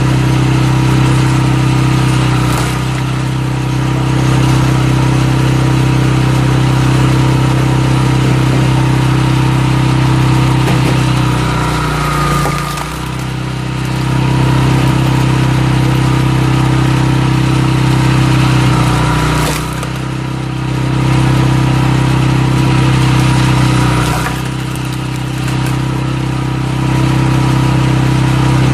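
Walk-behind cultivator's small engine running steadily while it drives a screw cone log splitter into oak rounds. Its note sags in pitch and level a few times, most clearly about halfway through, as the screw bites into the wood and loads the engine.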